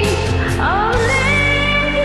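Karaoke backing track of a rock ballad in an instrumental passage: sustained chords with a rising pitch glide about half a second in, and cymbal strokes that stop about a second in.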